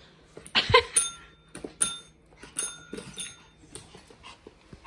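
A dog gives one short bark, then a push-button dog training bell is pressed about three times in quick succession, each press a bright ring that dies away.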